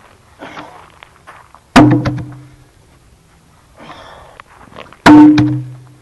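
Two heavy wooden thunks, about two seconds and five seconds in, as the end of a long log or telephone pole is dropped back to the ground. Each has a short, low, hollow ring that dies away within a second.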